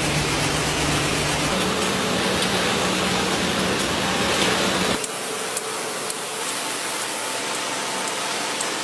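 Match-making machinery running: a steady rushing mechanical noise with a low hum under it, which changes abruptly about five seconds in to a thinner, higher noise without the hum.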